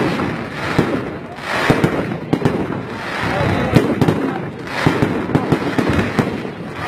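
Aerial fireworks going off in a volley: sharp bangs about once a second over a crackling hiss that swells and fades several times.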